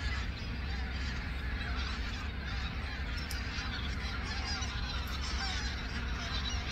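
A large flock of migratory waterfowl calling in the sky, many overlapping calls forming a steady chatter.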